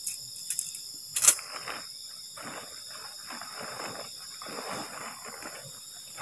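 A black plastic tent sheet rustles and crinkles as it is pulled open and spread out, from about two and a half seconds on. Before that come a few light clicks and a sharp knock about a second in as tent poles are handled. A steady, high chirring of night insects runs underneath.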